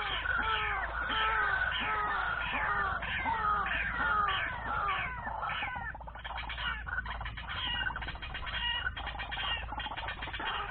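Bird calls: a series of short down-slurred calls, two or three a second, giving way about six seconds in to a faster, jumbled chatter.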